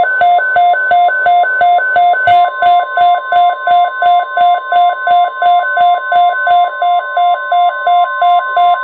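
A weather radio sounding an alert: the NOAA Weather Radio 1050 Hz warning alarm tone, a loud steady high tone. Over it a receiver's alarm beeps about three to four times a second. This marks the start of a broadcast weather alert.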